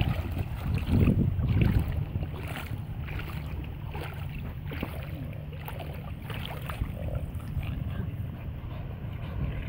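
Light, irregular water splashing as a small dog paddles through shallow water, over a steady low rumble of wind on the microphone that gusts loudest in the first two seconds.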